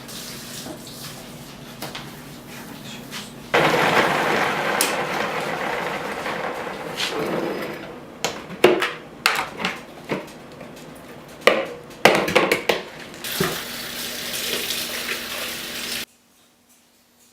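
Water running from a tap into a sink, with dishes and utensils clattering and knocking in between. The water starts suddenly, runs again a few seconds later, and cuts off abruptly near the end.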